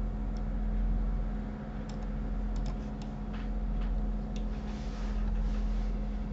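Irregular, scattered clicks of a computer mouse and keyboard over a steady low hum.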